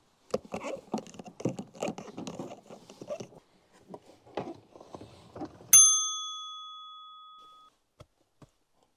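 Irregular clicks, scrapes and rattles of a cord and cabinet fittings being handled, then, about halfway through, a single bright bell-like ding that rings out and fades over about two seconds; it is the loudest sound.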